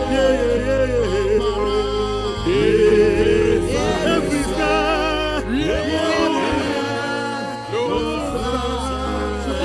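Slow gospel worship song: singing with vibrato over sustained low bass notes.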